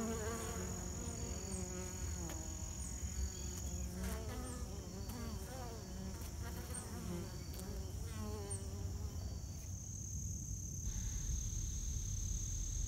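Honey bees buzzing close by at a hive entrance, their wing buzz wavering up and down in pitch. A steady high insect trill runs underneath, and near the end the buzzing fades, leaving that trill.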